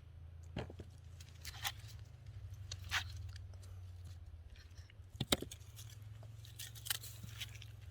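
Hands digging through loose soil: short scattered scrapes and rustles, the loudest about five seconds in, over a low steady hum.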